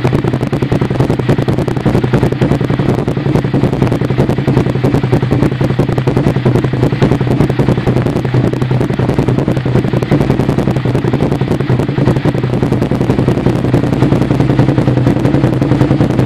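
Suzuki SV650S's 645 cc V-twin running steadily at idle through an aftermarket Micron exhaust can, a fast, even pulsing note heard right at the silencer outlet.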